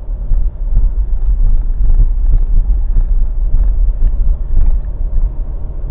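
A car driving, heard from inside the cabin through a dashcam: a steady low rumble of road and engine noise with small knocks and rattles scattered through it.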